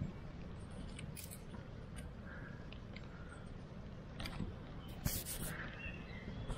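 Small kindling fire of feather sticks and twigs crackling in a dug earth fire pit, with scattered sharp snaps. About four to five seconds in, thin sticks rustle and click as more kindling is laid on.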